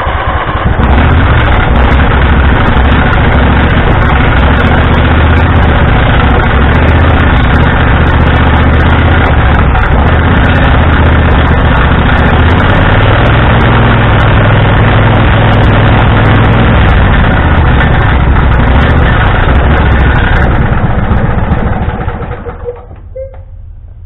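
Husqvarna riding tractor's engine running steadily on choke after a screwdriver start, then dying on its own about 21 seconds in. The owner says it shut itself off and needs a tune-up.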